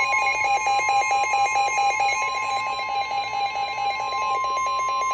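NOAA Weather Radio warning alarm tone, a steady single tone near 1 kHz, sounding for a severe thunderstorm warning. A second, lower alarm tone pulses rapidly on and off alongside it.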